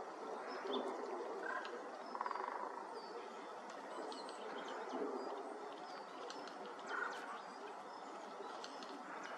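Eurasian jay calls: a few short, harsh calls about two seconds in and again about seven seconds in. Thin, high chirps of small birds run throughout, over steady background noise.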